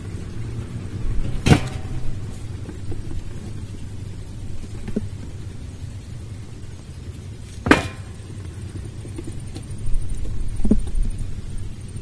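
Wooden beehive frames knocking as they are handled and dropped into a steel burn drum: two sharp knocks, about a second and a half in and near eight seconds, with a few lighter ones, over a steady low rumble.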